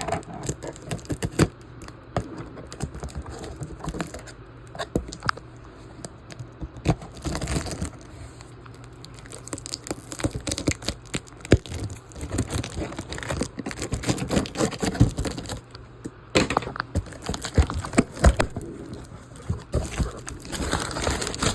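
Cardboard box and its packing being opened by hand: irregular tearing, crinkling rustles and sharp knocks.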